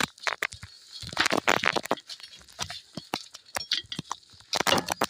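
Irregular metallic clinks and scrapes of a hand tool working at a stuck rear brake drum to pry it free.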